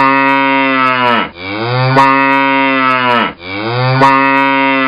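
A cow mooing three times in a row, long low calls of about two seconds each, the pitch dropping at the end of each call.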